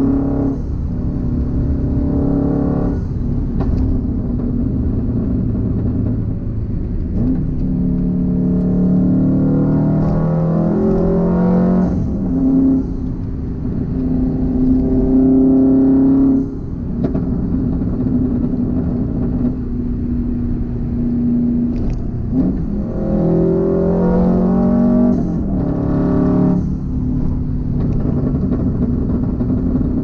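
2004 Subaru WRX STi's turbocharged flat-four engine and exhaust, heard from inside the cabin while cruising. The engine note climbs with the revs and drops at several gear changes.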